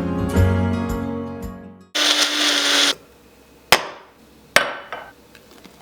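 Instrumental music that stops about two seconds in, then about a second of rushing noise with a steady hum, then two sharp knocks about a second apart, like hard objects set down on a kitchen counter.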